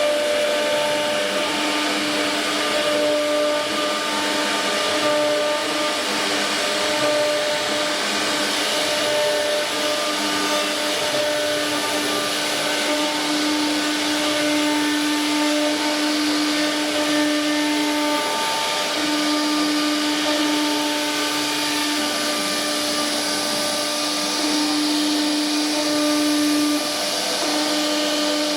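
CNC router spindle running, a steady pitched whine over a rushing noise, with the whine briefly dropping out a couple of times in the second half.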